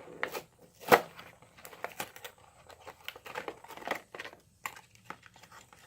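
Clear plastic blister pack on a diecast car's card being handled and pried open: crinkling plastic and cardboard with scattered clicks, and a sharp click about a second in, as the blister pops clean off the card.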